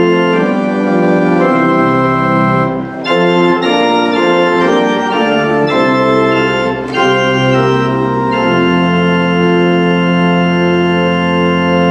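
Church organ playing the closing phrases of a hymn in chords, with short breaks between phrases about three and seven seconds in, then a long final chord held from about nine seconds in.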